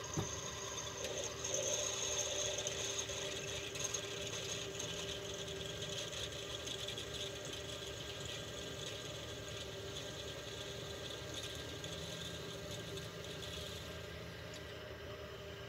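Mini milling machine running with a steady mechanical whine while a hole is cut through a mild steel connecting rod.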